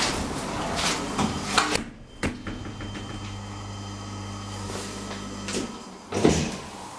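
Clicks and knocks inside a hydraulic lift car, then a steady low hum for a few seconds. The hum cuts off just before a sharp knock near the end, as the down button is pressed.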